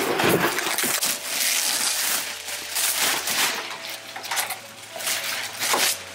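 Large clear plastic bag rustling and crinkling continuously as it is pulled off and bunched up by hand.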